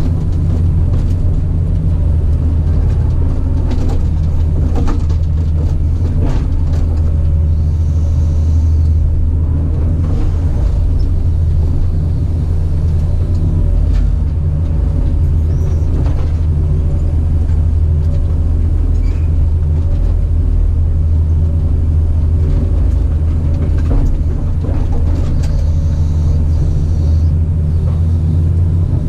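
Caterpillar 973C track loader's diesel engine running steadily, with scattered knocks and clatter over the low rumble.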